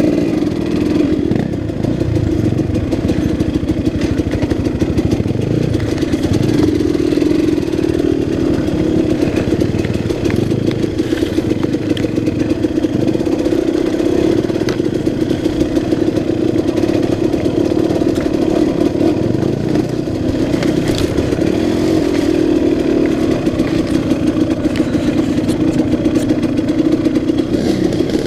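2006 KTM 200 XC-W's 200 cc two-stroke engine running as the bike is ridden along a rough trail, its revs rising and falling a little. Short clatters and knocks from the bike over rocky ground run through it.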